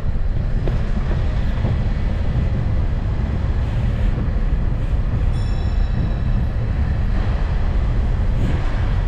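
Steady low rumble of riding aboard the Lucerne City Train, a tourist road train, with a brief high ringing tone about five seconds in.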